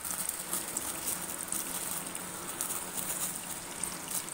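Crushed garlic frying in coconut oil on a heated tempering stone in a ladle over a gas flame: a steady sizzle with constant fine crackling.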